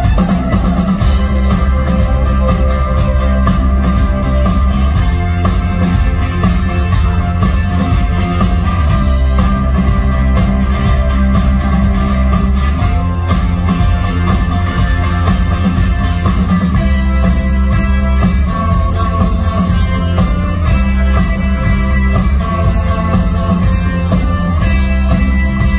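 Live rock band playing loud and steady, with electric guitar, keyboard, bass and drum kit keeping a driving beat, heard from within the audience.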